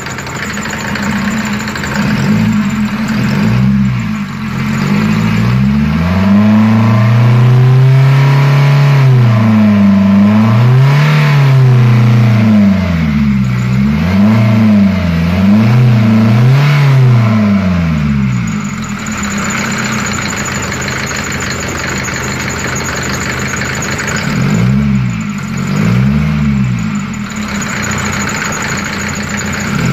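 Mercedes OM601 diesel engine idling with a knock, then revved up and down in a series of throttle blips, and again briefly near the end. The owner says the knock is hard at idle and goes away with a little throttle.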